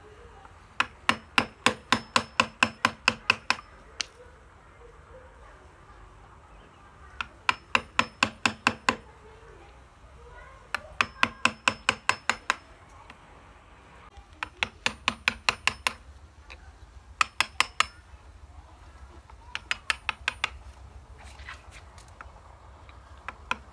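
Hammer striking a wood chisel, cutting into the trunk of a duối (Streblus asper) bonsai to pare down an old pruning scar. The sound comes as runs of quick, sharp taps, about four or five a second, each run one to three seconds long, with short pauses between.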